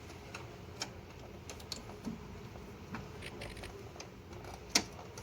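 Scattered light clicks and taps at an irregular pace, with one sharper, louder click near the end.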